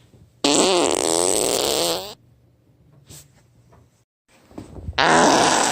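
Two loud fart sounds with a buzzy, wavering pitch. The first lasts under two seconds and the second starts near the end.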